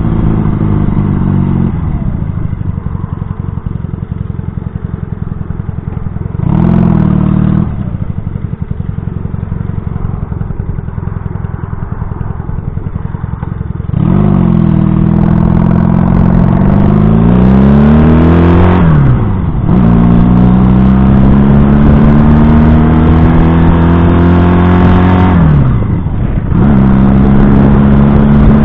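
1970 Honda CB175's small air-cooled parallel-twin engine heard from the rider's seat: it slows and idles, with one brief blip of the throttle, then pulls away, rising in pitch through the gears with an upshift about two-thirds of the way in and another near the end.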